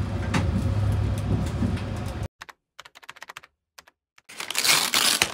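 Low steady rumble of a moving vehicle's interior, cut off about two seconds in. Then a run of light, sharp clicks, and near the end a loud rustling of packaging.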